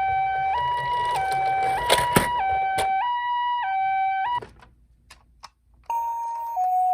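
Toy ambulance minicar's electronic two-tone hi-lo siren, switching pitch a little more than every half second, with a couple of sharp clicks about two seconds in. It cuts off after about four seconds, and another toy's hi-lo siren starts about six seconds in.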